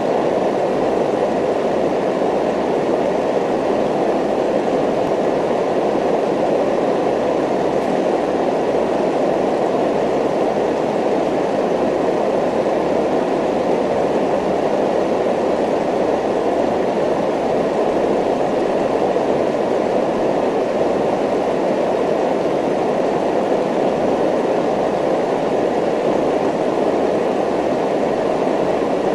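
Steady rumbling ambient noise with a regular low pulsing underneath, the masking background of a subliminal affirmation recording.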